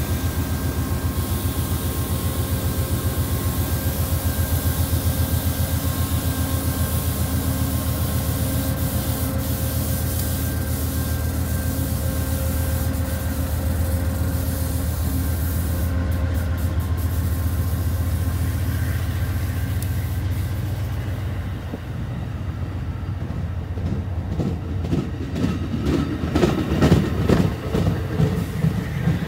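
Shore Line East commuter train pulling out, its stainless coaches rolling past with a steady low rumble that eases off about two-thirds of the way through. Near the end, as the cab car goes by, there is a run of sharp clicks from the wheels over the track.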